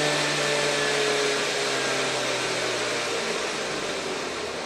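Large-scale model train locomotive's electric motors and gearing whining, the pitch falling steadily and the sound fading as the track voltage is turned down from maximum and the loco slows.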